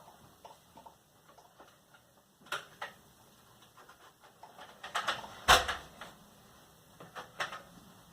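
Plastic clicks and clacks of a Nerf Rival blaster being handled while its rounds are reloaded, with one louder knock about five and a half seconds in.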